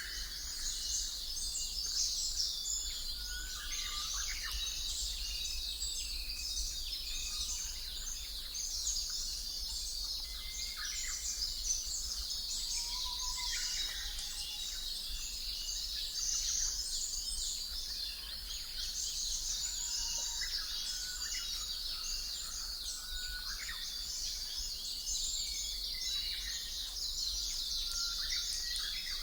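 Ambient nature soundscape of many birds chirping and calling, dense and continuous, over a steady low hum.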